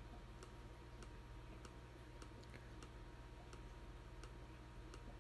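Faint computer clicks, evenly spaced at roughly one every two-thirds of a second, as measuring points are clicked one by one, over a low steady hum.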